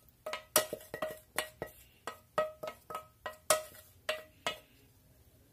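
Wooden spatula knocking and scraping against a stainless steel frying pan as the last of a creamy soup is scraped out. The pan rings with each knock, about three to four knocks a second, and they stop about four and a half seconds in.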